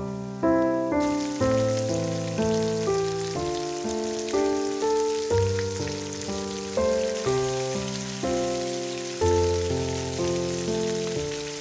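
Background music with a steady run of notes, over the sizzle of food frying in hot oil in a large metal wok, which comes in about a second in.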